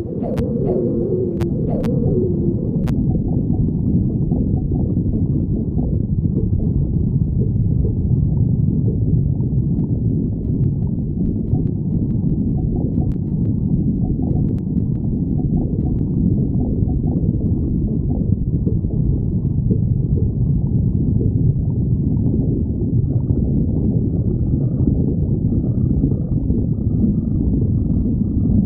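A hungry stomach growling, heard close up. A few short gurgling squeals bend up and down in the first two seconds, then a continuous low rumble follows.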